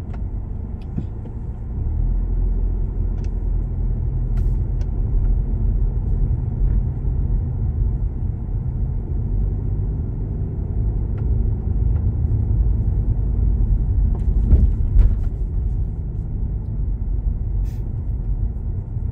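Low, steady rumble of a car being driven, from its engine and tyres, getting louder about two seconds in.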